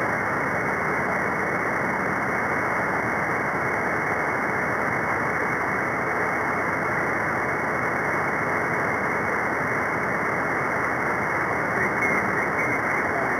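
Steady hiss of static from a radio receiver tuned to the 11-metre free band, with no station coming through between transmissions; a faint brief rise comes in near the end.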